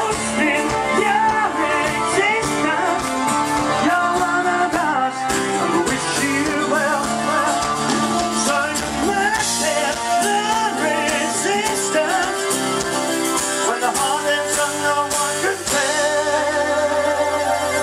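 Live country-rock band playing a song, with guitars, bass, drums and keyboard, amplified through the stage PA.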